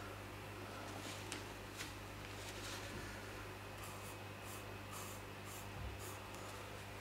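Quiet room tone with a steady low hum, and a few faint soft rustles, a run of them near the end at about two a second.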